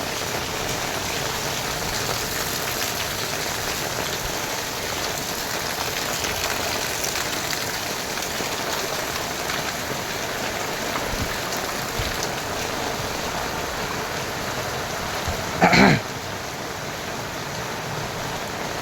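Heavy rain falling steadily, a dense even hiss of rain on surfaces. About sixteen seconds in, a brief loud pitched sound, a shout or a horn, cuts through the rain.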